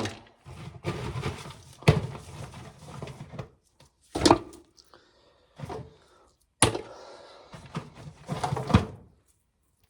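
Dried ears of corn being handled in a tub: irregular rustling and scraping broken by several sharp knocks, then a short pause near the end.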